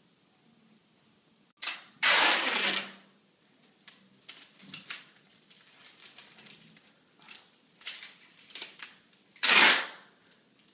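Adhesive tape being pulled and ripped off the roll in two loud tearing bursts, one about two seconds in and one near the end. Between them come small crinkles and clicks as the tape is handled.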